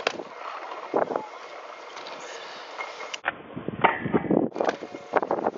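Stunt scooter wheels rolling over concrete, then a run of sharp knocks as the scooter hits and grinds along a low metal rail.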